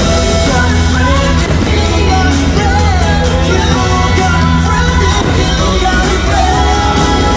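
Fireworks-show soundtrack: an upbeat song with a singer over a full band, played loud and steady.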